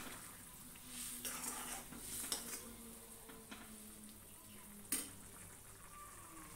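Metal ladle stirring and scraping a bubbling chickpea and potato curry in a metal kadai, with several sharp clinks of ladle on pan, the loudest about five seconds in.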